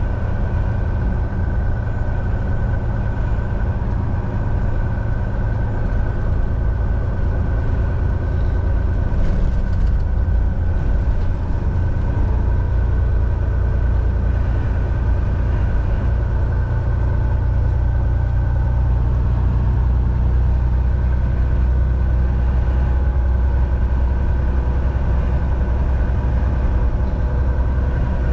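Semi-truck driving down the road: a steady low engine drone and road rumble, with a faint steady whine above it.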